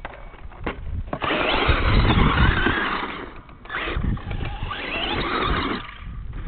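Radio-controlled monster truck's motor revving in two bursts, one from about a second in and one from about four seconds in, its pitch rising and falling as it drives across loose sand and over a jump.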